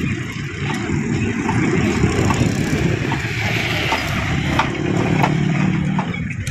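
Steel rolling shutter being turned through its hand-cranked worm-gear machine, the freshly greased gear and spring drum turning: a steady rattling noise with many small clicks.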